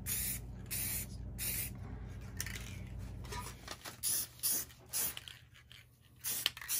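Aerosol can of Krylon ColorMaxx Clear spray finish hissing in a series of short bursts as clear coat is sprayed onto wood.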